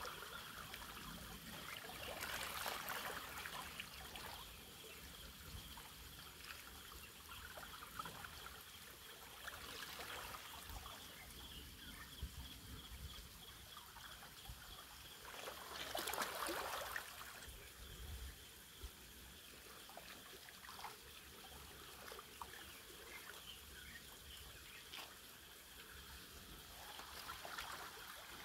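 Small waves lapping and trickling against shoreline rocks, faint, with a few louder washes every several seconds, the loudest a little past the middle.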